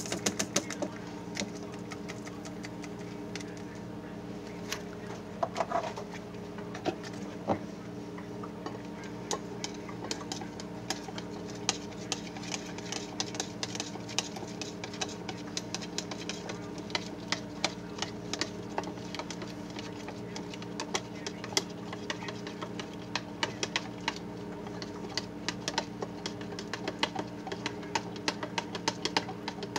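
A stainless steel spoon stirring lye solution in a small plastic cup, clicking rapidly and irregularly against the cup's sides and bottom, over a steady low hum.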